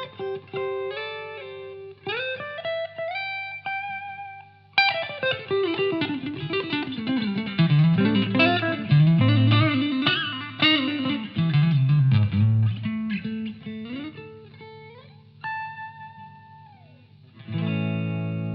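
Gibson Les Paul BFG electric guitar played through a Blackstar Series One valve amplifier on its clean channel with a little onboard reverb. Single-note lines with upward slides give way, after a sharp attack about five seconds in, to a fast run that descends into low notes; near the end a held note bends down and a chord is struck.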